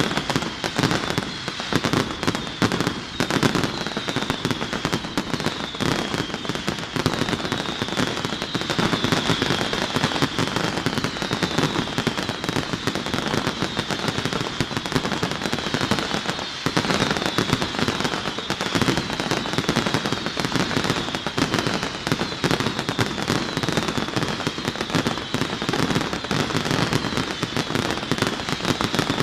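Fireworks display going off densely and without pause: a rapid stream of bangs and crackling. Over it runs a short falling whistle that repeats about once a second.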